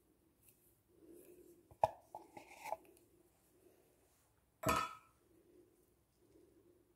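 Faint kitchen handling: a spatula scraping a condensed-milk tin and fingers working crumbly dough in a glass bowl. There is a sharp click and a few lighter clicks about two seconds in, and a louder knock with a brief ring, the loudest sound, a little past halfway.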